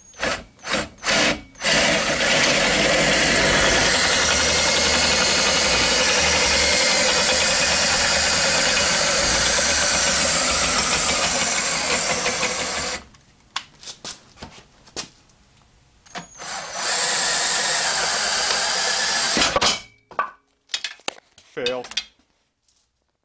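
Electric trailer-jack motor driving a homemade drill press table lift, running steadily for about eleven seconds and then stopping. After a few clicks and knocks it runs again for about three seconds, followed by more handling clicks.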